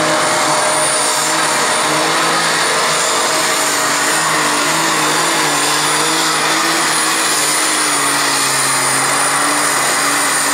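Super Stock pulling tractor's methanol-fuelled engine running flat out under load as it drags the weight sled, with a high steady whistle over it. The engine pitch wavers slightly as the tractor works down the track.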